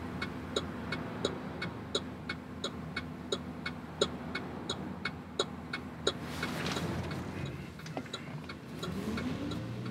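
Cargo van's turn signal ticking steadily, about three ticks a second, over the engine idling. Near the end the engine note rises as the van pulls into the U-turn.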